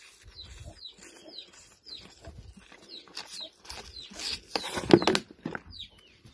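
Small birds chirping repeatedly in short falling notes while a calf sucks milk from a rubber nipple on a plastic bottle. A loud rustling, scuffing noise comes about four and a half seconds in.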